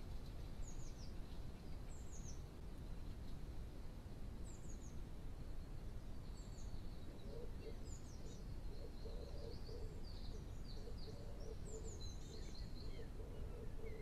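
Wild birds calling, heard through a trail camera's microphone over a steady hiss: short, high, falling chirps every second or two, busier in the second half.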